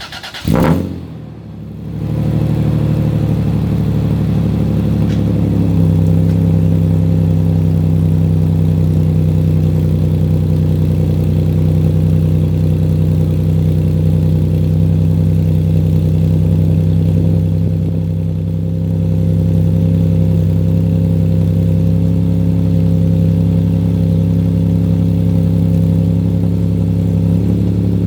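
Cold start of a 2001 Toyota Tacoma's 3.4-litre 5VZ V6 with TRD headers and a 2.5-inch side-exit exhaust through two Magnaflow resonators in place of the catalytic converters. It cranks briefly, catches about two seconds in, and settles into a steady cold idle, its note shifting once around six seconds in.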